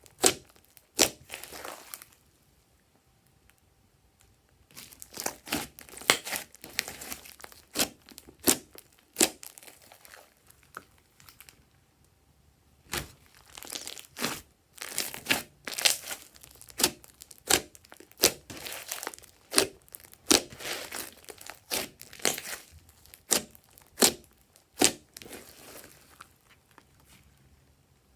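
Glossy slime being squished and stretched by hand, giving clusters of sharp wet pops and crackles. The popping stops twice, about two seconds in and again about ten seconds in, for roughly three seconds each time.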